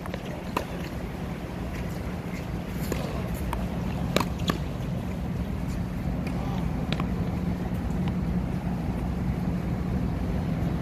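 Tennis ball hit with a racket and bouncing on a hard court: a handful of sharp pops in the first half, the loudest about four seconds in, over a steady low hum.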